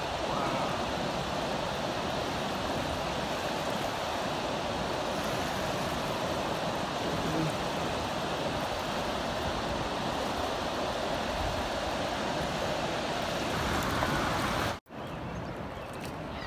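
River water rushing steadily over a low dam, an even hiss of flowing water. It cuts off abruptly near the end, and a quieter steady background follows.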